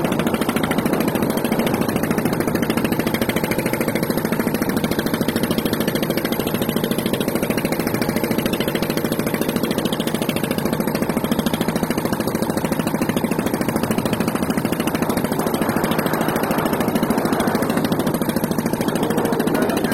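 An engine running steadily with a fast, even pulse that does not change through the whole stretch.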